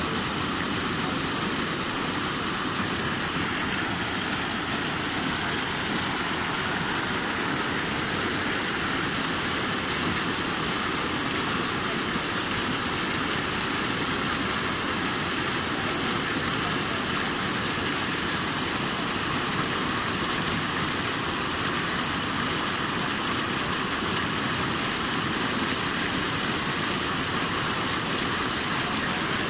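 Floodwater pouring over a concrete weir and churning into foam at its foot: a steady, unbroken rush of falling water.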